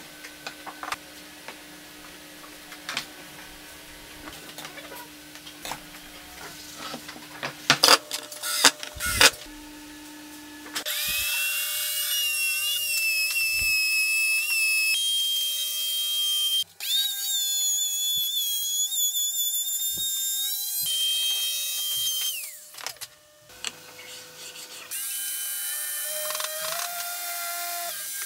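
Scattered knocks and taps of wood being handled, then a compact trim router starts about eleven seconds in and runs with a high whine while cutting a groove in a pine board, pausing briefly once and stopping about twenty-three seconds in. Near the end an electric drill mounted in a wooden drill-press stand runs, boring into a wooden block.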